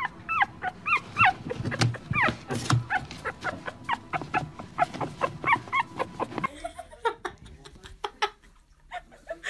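Small long-haired puppy whimpering and yipping: a rapid string of short, high cries that bend in pitch, with small clicks among them. The cries stop about two-thirds of the way through, leaving a few faint taps.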